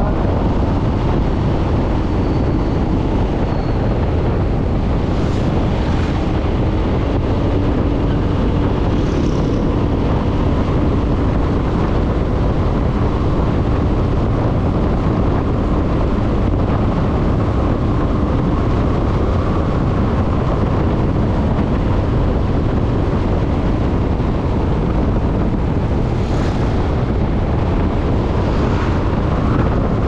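Wind rushing over the microphone of a motorcycle cruising steadily at about 60 km/h, with the engine's drone underneath. A few brief hisses come and go.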